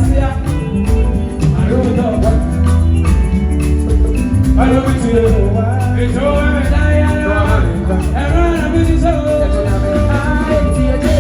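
Live band playing a song with a steady bass and drum groove, with a wavering melody line coming in about four and a half seconds in.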